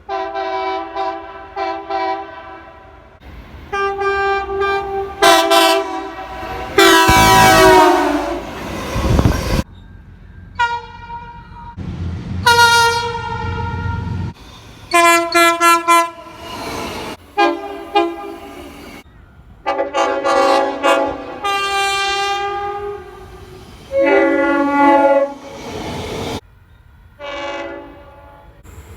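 Locomotive multi-chime air horns sounding a rapid series of blasts, some short toots and some longer holds, several different horns in turn with abrupt cuts between them. One long, loud blast about seven seconds in runs over a low rumble and falls in pitch.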